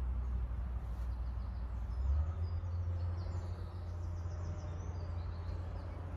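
Outdoor ambience: a steady low rumble with faint, high chirping over it.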